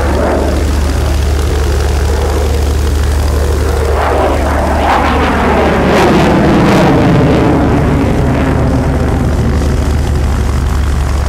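Belgian F-16 fighter's Pratt & Whitney F100 turbofan running in afterburner during a display, a steady jet rumble with sweeping, falling tones, loudest about six seconds in.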